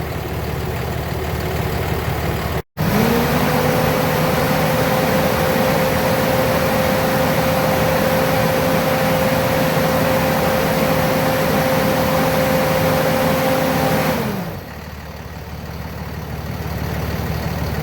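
Car engine running with the AC compressor clutch engaged: it is revved up a few seconds in, held at a steady raised speed for about eleven seconds, then drops back to idle. The revving is a test of whether the AC pressures change, and the mechanic judges the compressor bad.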